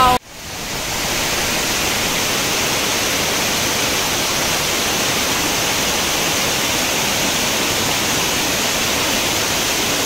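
Waterfall's steady rush of falling water, an even noise that fades in over the first second and then holds level.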